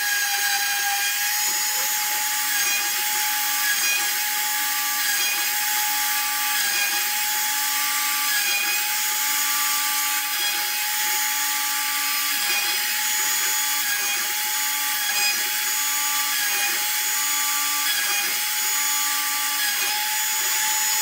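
Piranha CNC router cutting into a wooden board: the router motor runs at a steady high whine while the bit cuts, and a second, lower tone switches on and off about once a second as the machine moves the cutter.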